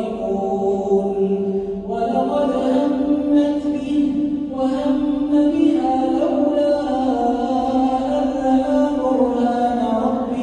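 A male imam chanting the Quran in slow melodic recitation, holding long drawn-out notes. There are short breaks about two seconds and four and a half seconds in.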